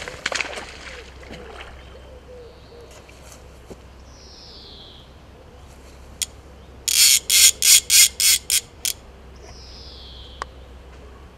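Fly reel's click-and-pawl ratchet buzzing in about eight short spurts over two seconds as a hooked carp pulls line off it. A bird gives a falling whistled call twice, once before the reel and once after.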